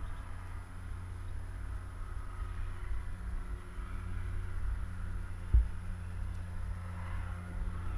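Steady low drone of a boat engine out on the sea below, under wind rumble on the microphone. One thump about five and a half seconds in.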